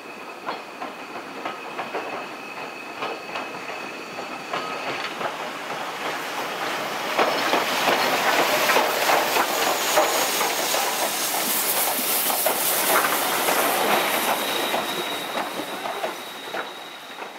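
Steam locomotive and its coaches rolling past close by, the wheels clattering over the rail joints. The clatter grows louder as the engine and first coaches draw level, then fades. A thin, high wheel squeal sounds over the first few seconds and again near the end.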